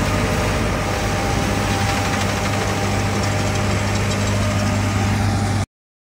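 John Deere S785i combine harvester running steadily at work in wheat, a constant engine drone with a strong low hum; the sound cuts off abruptly near the end.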